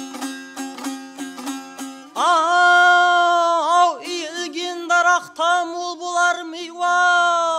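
Karakalpak baqsy folk song: a dutar strums a quick, even rhythmic figure, then about two seconds in a male voice comes in loud on a long held note and sings on over the strumming.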